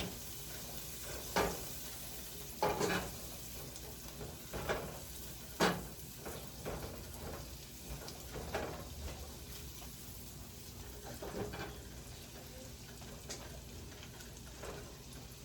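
Chopped onions sizzling softly in melted butter in a saucepan, with a few knocks and scrapes of the stirring spoon against the pan.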